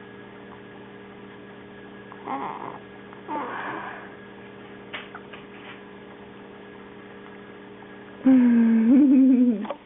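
Baby vocalising: two short coos a couple of seconds in, then a longer, louder drawn-out wavering coo about eight seconds in. A steady low hum runs underneath.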